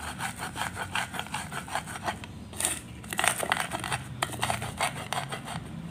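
Pestle grinding peanuts and chili in a clay mortar (cobek and ulekan): quick repeated scraping and crunching strokes as the nuts are crushed against the mortar's rough floor.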